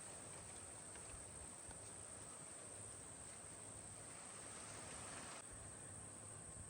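Faint outdoor ambience: insects, crickets or the like, making a steady high-pitched drone over a low hiss.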